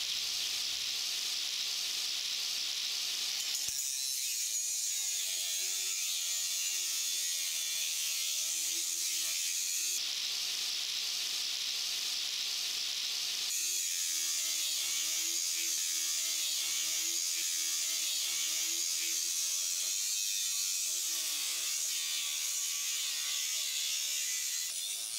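An angle grinder running with its abrasive disc grinding the side of a steel chainsaw bar flat, to remove the uneven wear on the bar rails that makes the saw cut crooked. It is a steady high hiss of grinding, with the motor's lower whine wavering as the bar is pressed against the wheel, and the sound shifts abruptly a few times.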